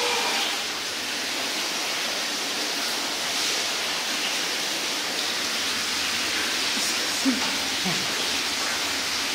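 A steady, even hiss of background noise, with a faint voice at the very start and a short faint sound about seven seconds in.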